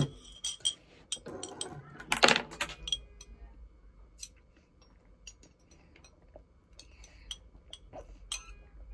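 Scattered small clicks and clinks of things being handled at a table while eating, with a louder clatter about two seconds in.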